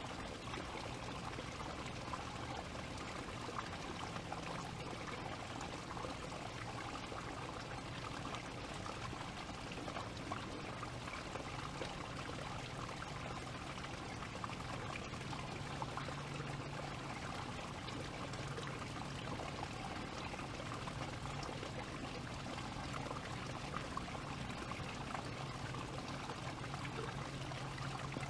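Steady rushing noise like running water, even and unbroken, with a faint low hum underneath.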